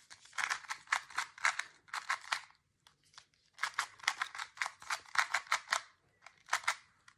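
GAN 251M Pro magnetic 2x2 speed cube being turned quickly, its layers clicking into place in rapid runs of clicks. There are two runs of about two seconds each with a short pause between, and a few more clicks near the end.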